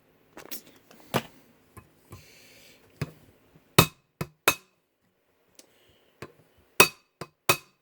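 A hammer tapping brass rivets into a knife handle: about nine sharp, irregular strikes, a few louder ones with a brief ring, and a short rustle after the first few.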